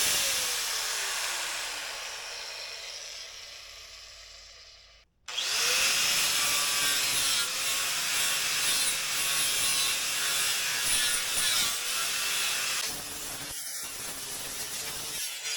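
Metabo angle grinder running without load, then winding down to a stop over about five seconds with a falling whine. It starts again, spinning up quickly with a rising whine, runs steadily, and gets quieter near the end.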